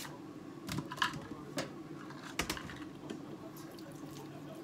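A few light clicks and knocks of kitchenware being handled in a kitchen sink, over a faint steady hum.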